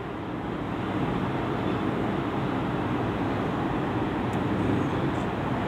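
Steady background noise, an even low rumble and hiss with no speech over it.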